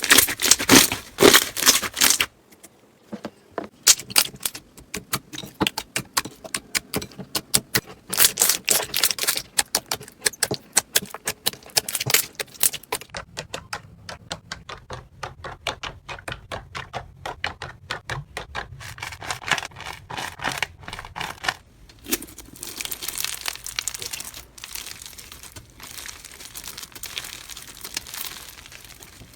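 Slime being squeezed, poked and stretched by hand, giving rapid crackling and popping clicks. The clicking is loudest and densest in the first half, stops briefly about two and a half seconds in, and turns softer and more continuous later.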